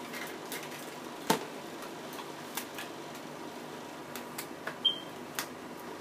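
Light plastic clicks and taps as a toy fridge is handled and freed from its packaging wire twist ties, with one sharper click about a second in and a brief high squeak near the end.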